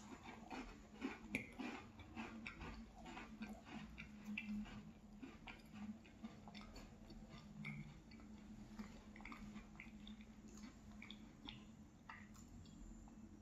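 Close-miked chewing of a sandwich cookie topped with yogurt, with soft, wet little mouth clicks and smacks, thicker in the first half and thinning out later.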